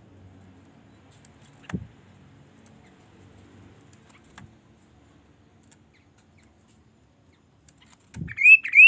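Chestnut-capped babbler (kaso-kaso) calling near the end: a loud, short phrase of two quick rising whistles. Earlier there is a single soft thump.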